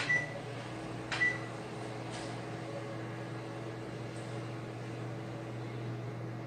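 Microwave oven keypad beeping as a button is pressed, then a second beep about a second in, after which the microwave starts and runs with a steady low hum.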